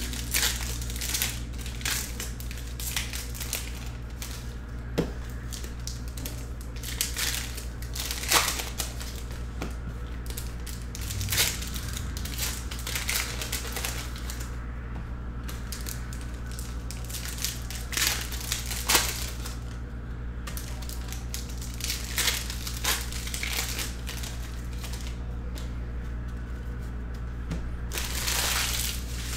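Foil wrappers of Panini football card packs being torn open and crinkled: irregular short crackling rips with cards handled in between, and a longer stretch of crinkling near the end.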